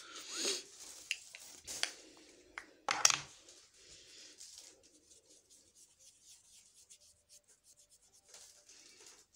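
Scratchy rubbing of an eyeshadow brush and hands close to a phone's microphone, with a few knocks of handling, the loudest about three seconds in. From about four seconds on, a quick, even scratching.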